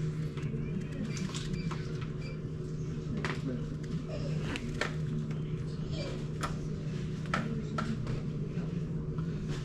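Steady low mechanical hum with a scattering of sharp knocks and clicks, about eight to ten of them, mostly in the second half.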